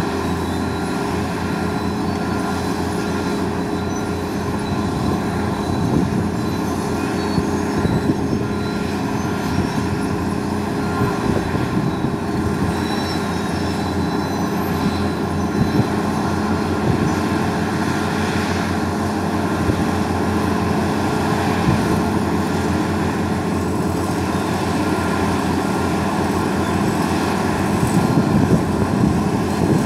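Diesel engines of two large tracked excavators running steadily under load during a pipe lift, a constant drone with a steady tone.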